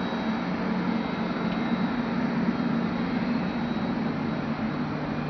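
Steady machinery noise inside an International Space Station module: the cabin ventilation fans and life-support equipment running, an even hiss over a constant low hum.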